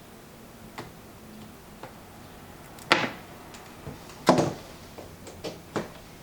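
Scattered clicks and knocks of hard plastic being handled on a laser printer, with two louder knocks about three and four and a half seconds in.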